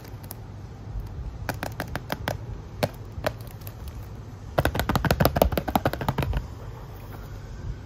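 Cellophane wrap on a perfume box crinkling and crackling under the fingers: a few scattered crackles, then a dense run of crackling about four and a half seconds in, lasting nearly two seconds.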